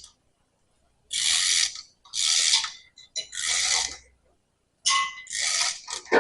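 A ratchet being worked in repeated strokes: about six bursts of rapid clicking, each under a second long, roughly a second apart.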